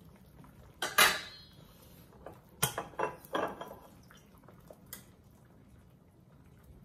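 A metal pot lid clanks and rings as it is set down about a second in, followed by a few lighter metal clinks of a stainless ladle against the pot.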